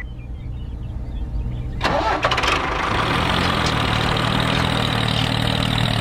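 An engine starts about two seconds in, catching with a noisy burst and then settling into a steady run.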